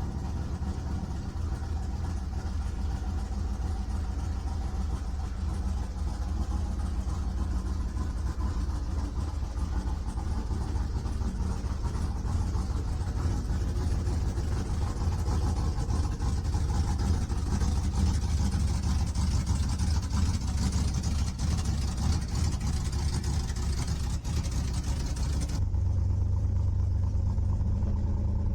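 LS V8-swapped Chevrolet C1500 pickup running on a test drive: steady engine and road rumble. The sound changes abruptly about 26 seconds in, the higher sounds dropping away.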